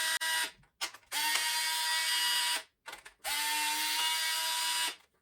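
Cordless electric screwdriver backing out the housing screws of a battery charger, its motor whining steadily in three runs: one stops about half a second in, then two more of about a second and a half each, each spinning up with a short rise in pitch.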